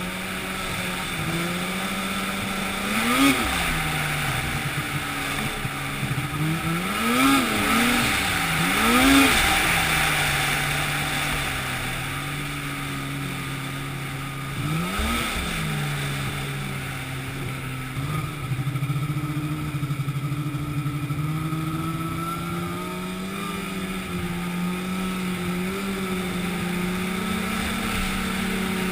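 An engine running steadily, revving up and dropping back several times: once a few seconds in, three times in quick succession a little later, and once more about halfway through.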